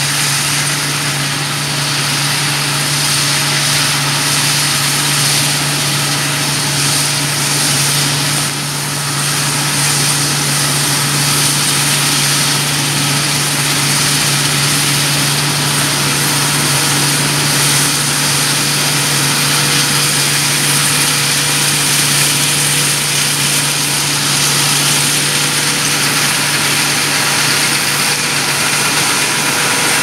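John Deere W550 combine harvester working as it cuts winter wheat: a loud, steady engine drone with a broad hiss over it.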